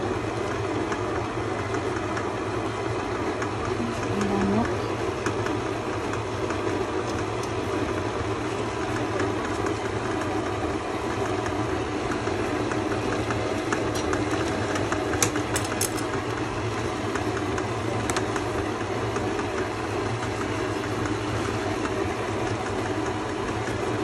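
Kenwood stand mixer running steadily, its beater turning through a stiff mix of chocolate cake crumbs and buttercream.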